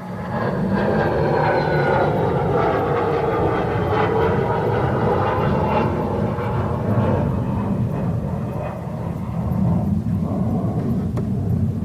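A loud, steady mechanical running noise with a low rumble, starting abruptly, and a high whine that slowly falls in pitch over the first few seconds.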